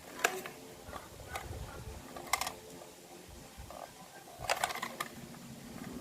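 Sharp plastic clicks and light knocks from a 1:32 scale alloy-and-plastic toy military truck being handled: one near the start, two more spaced out after it, and a quick cluster of clicks about four and a half seconds in.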